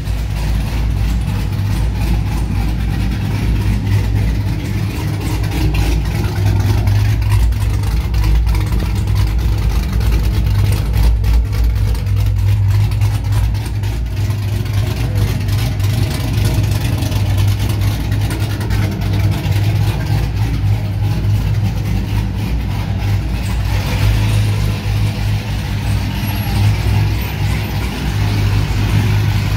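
A Cadillac sedan's engine idling steadily with a deep, even exhaust note, heard close to the car in a concrete parking garage.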